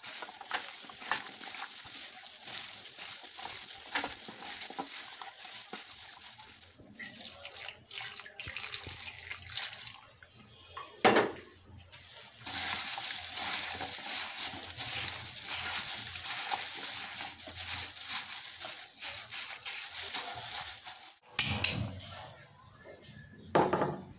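Fish and vegetables sizzling in a frying pan: a steady high sizzle that falls away about six seconds in, comes back strongly around twelve seconds and stops a few seconds before the end. A few loud sharp knocks stand out in between.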